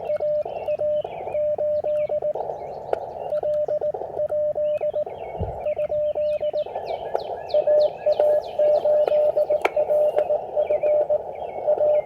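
Morse code from an Elecraft KX3 transceiver: a steady tone of about 600 Hz keyed on and off in dots and dashes, over the hiss of the receiver's narrow filter. Birds chirp in short falling notes in the background, mostly in the second half.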